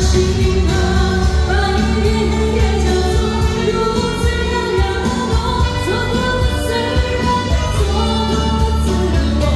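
Chinese pop song played loud over a hall sound system, with singing over a heavy bass beat.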